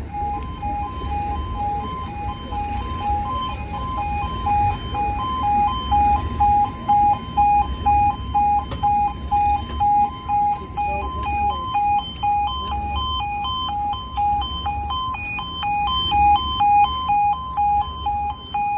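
Railway level crossing warning alarm sounding: a two-tone warble that switches quickly back and forth between two pitches. It carries on without a break while the barriers come down, with a sharper, higher-pitched pulsing growing louder in the second half.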